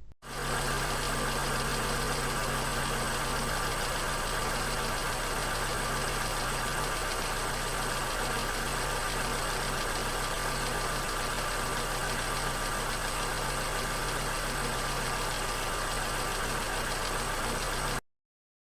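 Engine running with knocking (pinking): the uneven rattle that uncontrolled combustion, detonation or pre-ignition, produces in the cylinders. It runs steadily and stops abruptly near the end.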